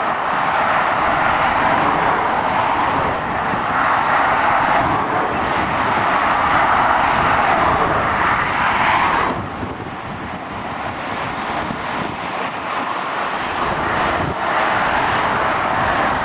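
Dual-carriageway traffic of lorries and cars: a steady rush of tyre and engine noise. It drops suddenly about nine seconds in, then builds again.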